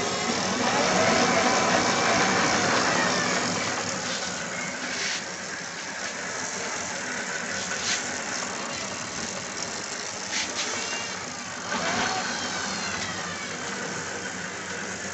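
Electric bicycle's 24-volt 250-watt DC conversion motor running, whirring as it drives the chain and rear wheel, with chain rattle. The whine is loudest and shifts in pitch in the first few seconds, glides again about twelve seconds in, and a few sharp clicks come through in between.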